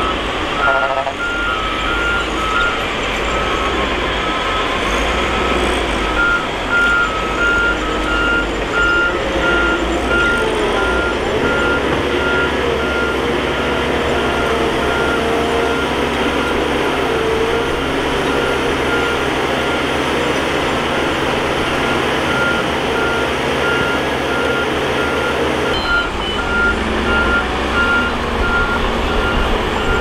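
Bulldozer diesel engine running under load while its reverse alarm beeps repeatedly, about two beeps a second. The engine note changes about eleven seconds in and again near the end.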